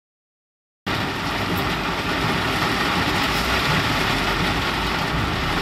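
Heavy rain beating on a car's roof and windshield, heard from inside the cabin over the steady noise of the engine and tyres on a flooded road. The noise starts suddenly about a second in and then holds steady.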